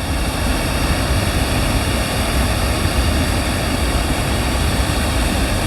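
Steady rush of water pouring over a man-made weir, with wind buffeting the microphone in a low, uneven rumble.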